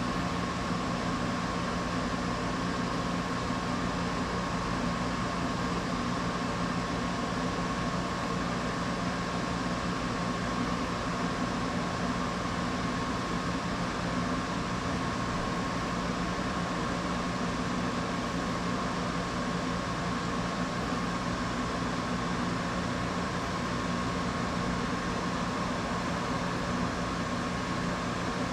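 Steady machine hum with a thin, constant whine over an even hiss, unchanging throughout.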